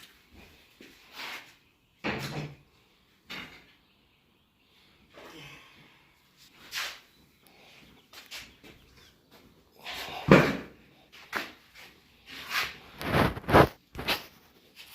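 Irregular clunks and knocks of parts and tools being handled, about a dozen separate hits with short pauses between, the loudest around ten and thirteen seconds in.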